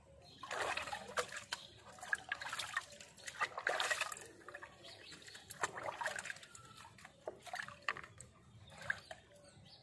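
Long wet hair squeezed and rubbed by hand over a plastic tub: irregular wet squelches, with water dripping and splashing into the tub. The squelching is busiest and loudest in the first four seconds, then thins to scattered softer squishes.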